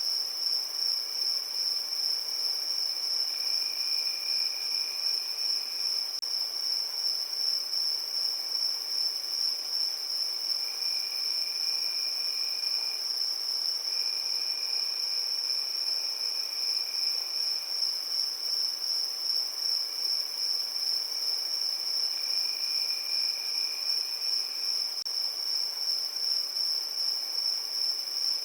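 Chorus of crickets trilling steadily at a high pitch on a summer evening. A second, lower trill swells in and fades out in spells of a few seconds.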